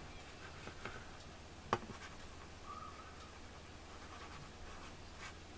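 Faint clicks and light rubbing of a computer mouse being moved and clicked, with one sharper click about 1.7 s in, over a low steady hum.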